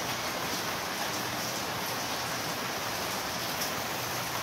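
Heavy rain falling steadily, an even hiss without breaks.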